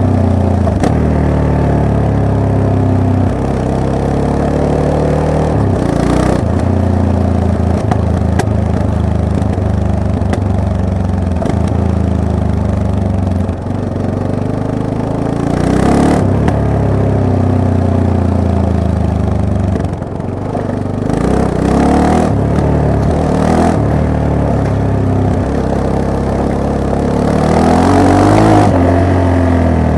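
Yamaha MT-03 motorcycle engine being ridden, its pitch rising and falling again and again as the throttle opens and closes. There are a few brief rushes of noise, the loudest near the end.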